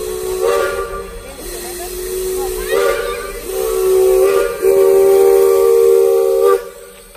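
Steam locomotive whistle blowing a chord of several steady tones in a series of blasts. The last blast is the longest and loudest, about two seconds, and it cuts off sharply near the end.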